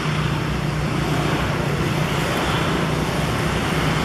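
Steady background traffic noise with a low engine hum, unchanging throughout.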